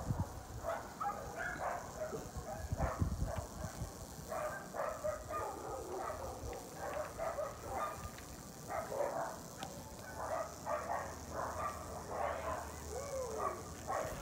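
Dog barking again and again in short, irregular barks, with a few low thumps about three seconds in.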